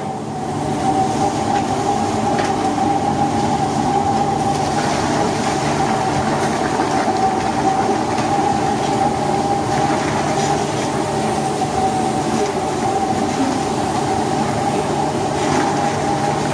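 Hot saffron water poured into a large pan of oil-sautéed rice, steaming and sizzling as it hits. A steady hum runs underneath.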